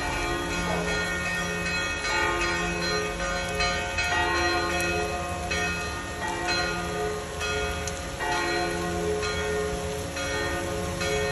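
The church bells of Santa Maria a Mare ringing together in a continuous peal. Several bells of different pitches strike over and over, their long ringing tones overlapping.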